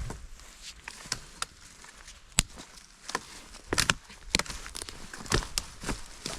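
Footsteps over a forest floor, with irregular sharp snaps and crackles of twigs and sticks.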